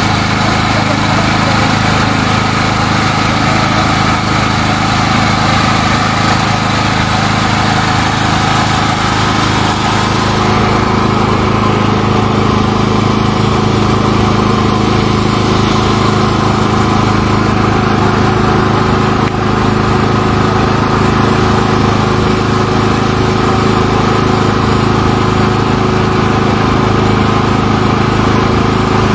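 Loud, steady engine drone that holds one pitch.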